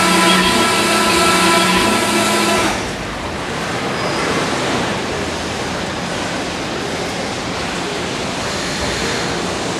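Rottler H75A CNC vertical honing machine diamond honing an aluminium four-cylinder block: a steady machine whine of several tones that stops about three seconds in, giving way to a steady rushing hiss as the hone works in the cylinder bore.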